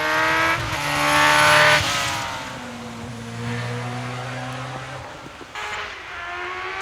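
Hillclimb competition car's engine under hard acceleration, rising in pitch through the revs with a short break at a gear change; loudest about a second and a half in. After that it drops to a lower, quieter steady note.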